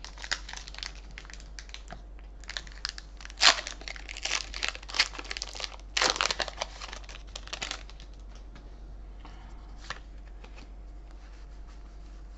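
Foil wrapper of a Pokémon Sword & Shield booster pack crinkling and tearing open, in a run of sharp rustles over the first eight seconds, the loudest about three and a half seconds in. After that it goes quieter, with only a few faint ticks.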